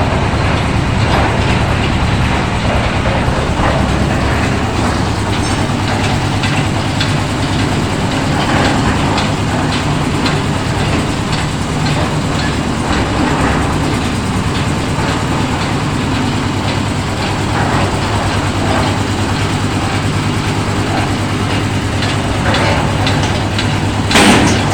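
Concrete mixer machine running: a steady engine drone with continuous rattling and clattering, and one sharp knock near the end.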